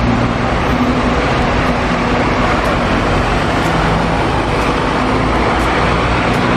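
Diesel engine of a double-decker bus running steadily as the bus turns and pulls away, with street traffic noise around it.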